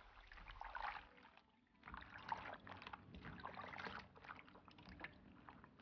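Faint sloshing and splashing of water as hands rub and rinse bok choy leaves in a stainless steel bowl. It comes in uneven bursts, with a short pause about a second in.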